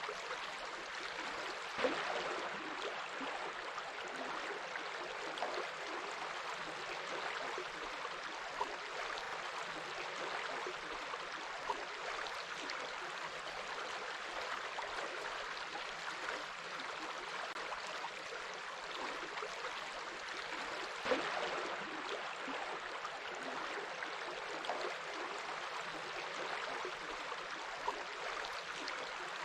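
A stream running steadily, a continuous rush of water with small gurgles, and slightly louder splashes about two seconds in and again past the twenty-second mark.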